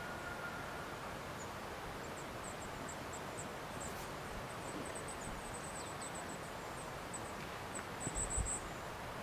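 Steady outdoor hiss with short, high-pitched chirps repeating in irregular runs, densest in the middle and near the end. A few low thumps come about eight seconds in.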